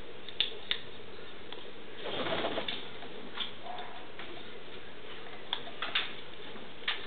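African grey parrot's beak clicking and crunching on a passionfruit shell as it feeds: scattered sharp clicks, with a denser crackly spell about two seconds in. A brief soft bird call sounds near the middle.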